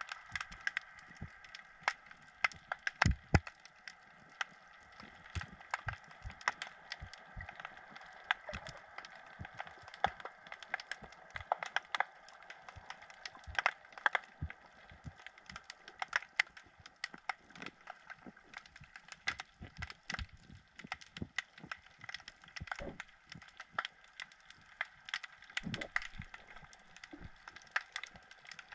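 Underwater crackle of irregular sharp clicks and occasional louder knocks, several a second, over a faint steady hum.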